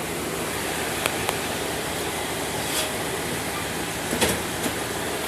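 A 1997 Dodge Ram 1500 running in four-wheel drive with its wheels off the ground: a steady engine and drivetrain hum. A few faint clicks and knocks come through, the clearest about four seconds in.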